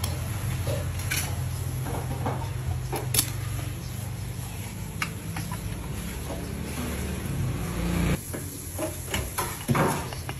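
Light clicks and taps of a moka pot being handled and assembled, a paper filter laid onto its basket of ground coffee. A steady low hum runs underneath and cuts off about eight seconds in.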